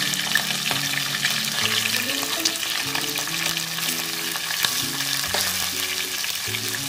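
Raw chicken pieces sizzling and crackling in hot ghee and oil with whole spices in an aluminium pot, as more pieces are dropped in one after another.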